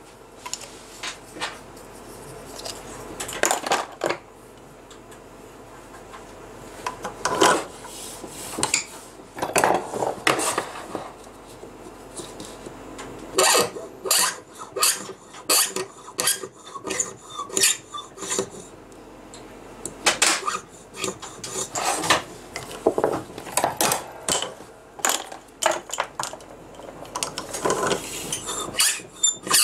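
Hand-held cutting tool scraping into a clear plastic fountain-pen part spinning on a small bench lathe, in short irregular strokes with sharp clicks.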